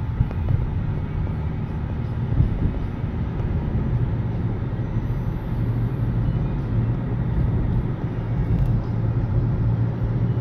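Car driving on a city street, heard from inside the cabin: a steady engine and road rumble with a low hum.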